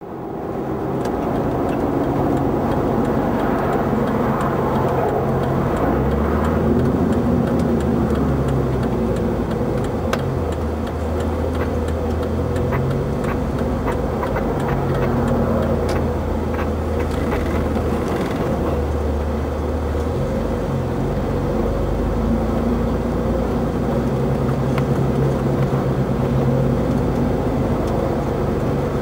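Vehicle driving: a steady engine hum and road noise, the engine's low note stepping up and down now and then, with scattered light ticks and rattles.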